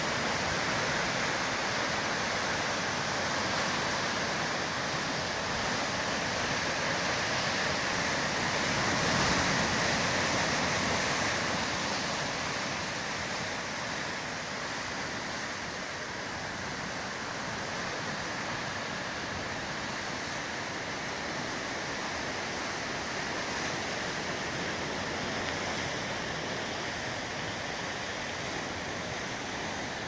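Rough sea surf washing and breaking over rocks at the foot of a cliff: a steady rushing noise that swells a little around ten seconds in, then eases.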